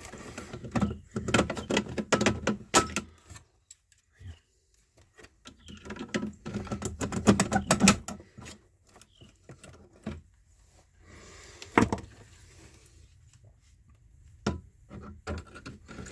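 Irregular clicks, taps and rattles of hand tools and wires being worked inside a metal electrical disconnect box, in two busy flurries and then a few single clicks.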